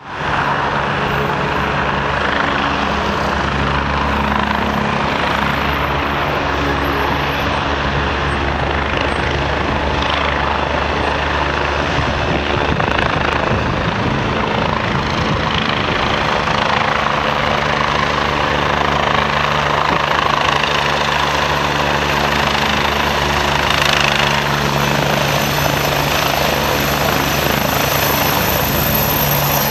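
Agusta AW109 SP twin-turbine helicopter running as it lifts off and hover-taxis toward the camera. Its turbine and rotor noise is steady and loud, and a little louder in the last several seconds.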